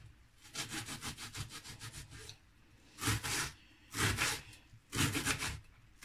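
Kitchen knife finely chopping an onion on a wooden cutting board: a quick run of rapid knife strokes for nearly two seconds, then three short bursts of strokes about a second apart.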